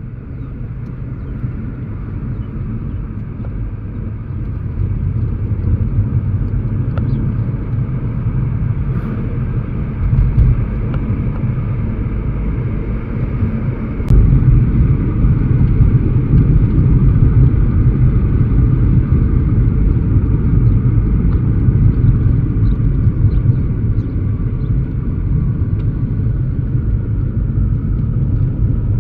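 A motor vehicle's steady low rumble, growing louder over the first several seconds and stepping up again about fourteen seconds in.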